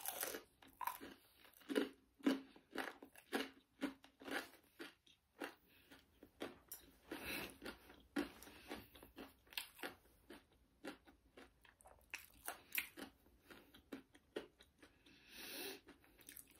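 Close-up chewing of a crispy fried veg chicken nugget: a run of irregular crunches and wet mouth sounds, with a softer breathy sound near the end.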